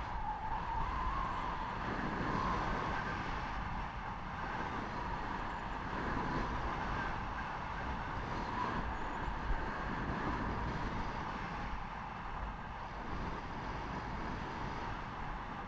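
Steady rush of wind over the microphone with the scraping hiss of edges sliding and carving over packed snow during a downhill run.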